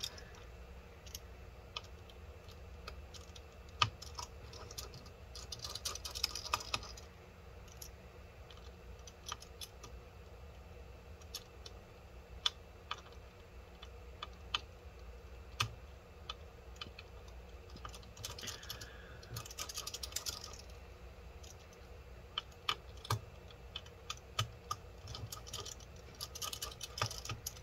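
Faint, irregular clicks and ticks from a precision pentalobe screwdriver working tiny P2 screws out of a MacBook Pro and the screws being handled, with a few short spells of quicker scratchy clicking.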